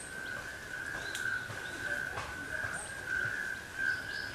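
A steady high-pitched drone that swells and fades slightly, with a few faint, short high chirps now and then.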